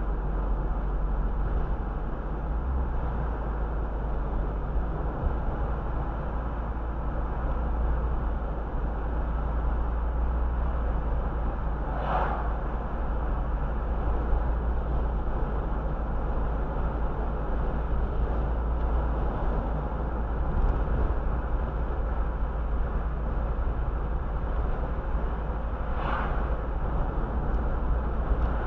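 Steady road and engine noise of a car driving, heard from inside the cabin. A few brief sharp noises stand out, once about twelve seconds in and twice near the end.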